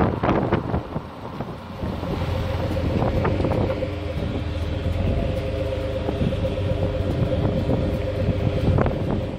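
A 2003 Chrysler Town & Country's 3.8-litre V6 idling steadily through its stock exhaust, heard close to the tailpipe. A short rushing noise comes first, and the even idle drone settles in after about two seconds.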